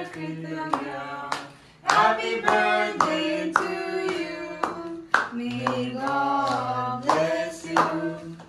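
People singing a birthday song while clapping in time, about three claps a second, as the birthday cake is cut.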